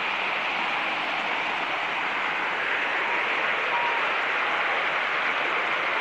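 Fast-flowing shallow stream rushing over boulders and small cascades: a steady rush of water.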